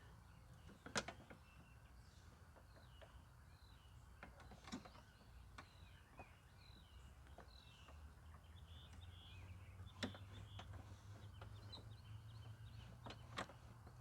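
Near silence, broken by a few sharp, isolated clicks of metal parts and tools being handled on a lawn mower. Faint bird chirps sound in the background.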